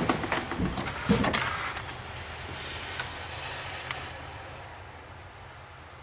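Clatter and clicks of parts being handled in a car's engine bay, mostly in the first second and a half, then a couple of single clicks over a faint, steady low hum.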